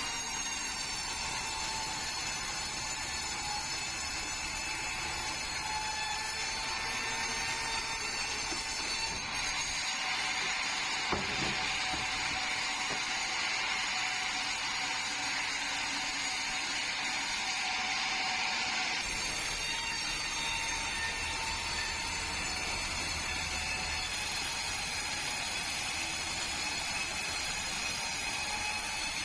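Engine-driven sawmill blade cutting through a bengkirai hardwood log, running steadily. The cutting grows louder and denser from about ten seconds in until just before twenty seconds, then eases back. A single sharp knock comes about eleven seconds in.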